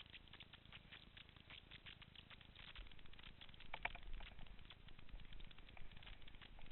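Faint, fast crackling patter of mountain-bike tyres rolling over loose volcanic gravel, with a sharper click a little past the middle.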